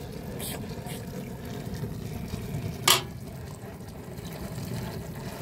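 Water running steadily, with one sharp clink about three seconds in.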